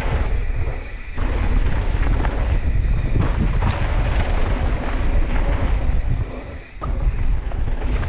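Wind buffeting the microphone of a camera on a mountain bike descending a dirt jump trail at speed, with the rumble of the tyres on packed dirt. The noise drops away briefly twice, about a second in and again near the end.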